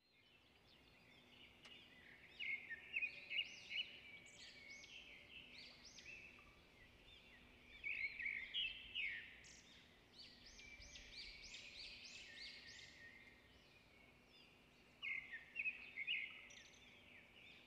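Wild birds calling in quick bouts of short chirps and whistled notes, with a faint steady low hum underneath.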